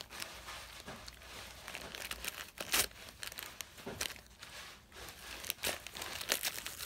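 A dog tearing and crumpling gift wrapping paper with its teeth and paws: irregular crinkling and ripping, with a few sharper rips now and then.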